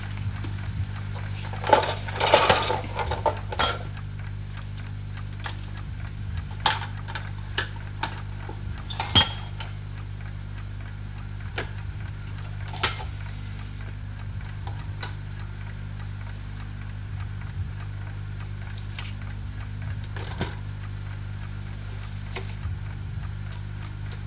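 Scattered small clicks, clinks and rustles of small objects being handled, busiest in the first few seconds and sparser later, over a steady low hum.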